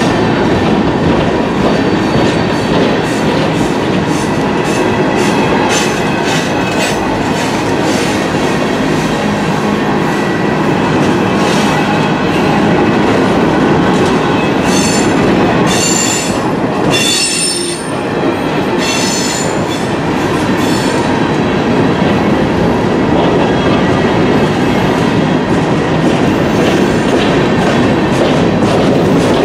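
Freight train of open-top hopper cars rolling past close by: a steady rumble with wheels clicking over the rail joints. A high squeal from the wheels rises over it for several seconds around the middle.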